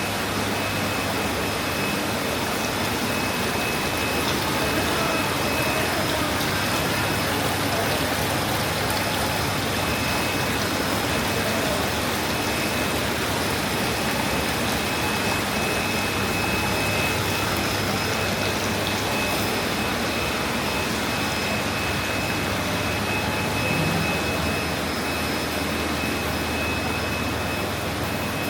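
Supermarket ambience: a constant mechanical hum and hiss, typical of ventilation and refrigeration, with a thin high whine that fades in and out.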